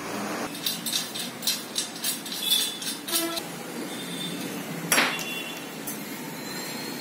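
Metal clinks and knocks from a steel platform-scale frame and a steel pipe column being handled: a quick run of light clicks, one of them ringing briefly, then a single louder metallic knock about five seconds in.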